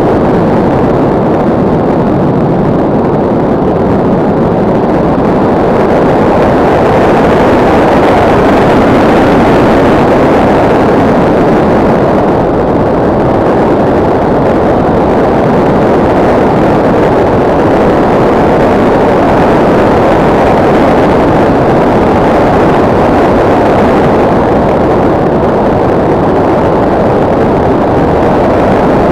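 Loud, steady rush of airflow over the onboard camera of an RC motor glider in flight: wind noise on the microphone, swelling a little partway through.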